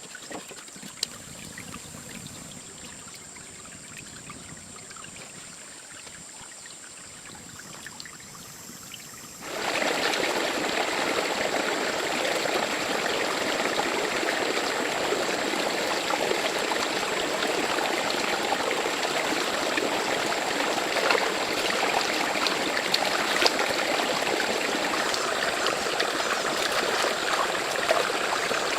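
Faint, steady outdoor hiss, then, about a third of the way in, the loud steady rush of running water, like a stream, starts abruptly and carries on.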